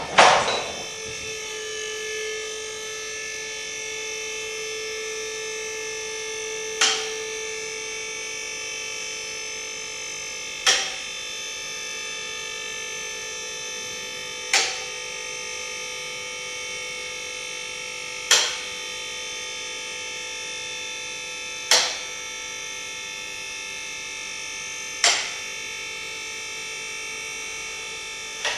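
Electric hydraulic pump of a mobile scissor lift running steadily as its two hydraulic cylinders raise a car, starting with a jolt and cutting off at the end. A sharp click comes about every three and a half seconds, six times, as the lift's mechanical safety lock catches on the way up.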